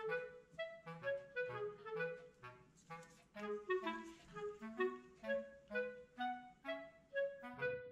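Background music: a lively melody of short, quick notes over a lower moving accompaniment.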